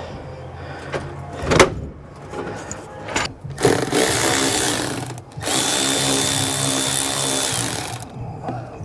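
A sharp knock about a second and a half in, then a cordless power drill/driver running in two bursts of about one and a half and two seconds, its motor whine rising as it spins up and dropping as it stops, driving out a screw.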